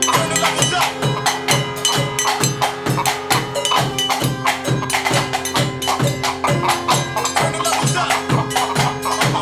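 Live improvised percussive music: a steady beat of sharp knocks and clicks, about two a second, with low thuds, over a held droning tone.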